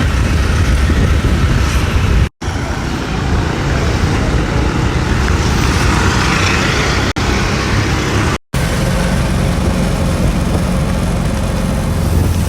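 Steady road and engine rumble from a moving vehicle, heard in several short clips with abrupt cuts between them.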